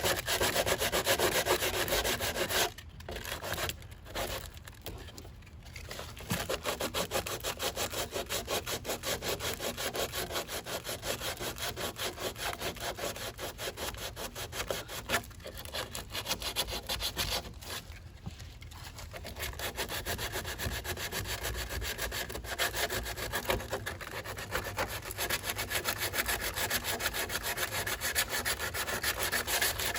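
Sandpaper worked by hand over body filler on a car body panel: fast back-and-forth scraping strokes, with a few short pauses.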